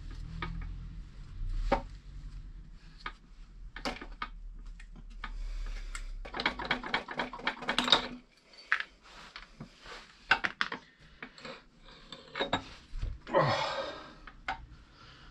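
Metal clinking, tapping and scraping of hand tools on the steel parts of a trench rammer's foot as the circlip and connecting-rod pin are worked free. There are scattered sharp clinks, a run of rapid rattling clicks about halfway through, and a louder scrape near the end.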